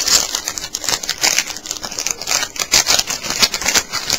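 Foil trading-card pack wrapper crinkling and crackling as hands handle and open it close to the microphone: a dense, irregular run of quick crackles.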